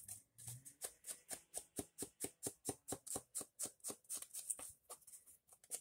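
Edges of torn handmade paper being inked with an ink pad: quick, even rubbing strokes of paper against the pad, about five a second, soft and scratchy.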